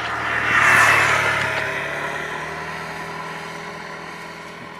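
A motor engine passing by, loudest about a second in and then fading slowly.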